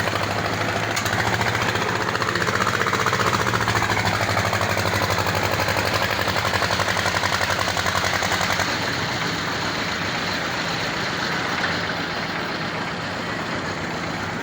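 Engine of a concrete mixer and pump machine running steadily at a construction site, with a fast, even pulsing hum. It eases off slightly in level about two-thirds of the way through.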